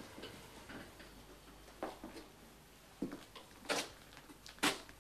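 Faint, scattered clicks and taps, with a few sharper ones in the second half, about a second apart.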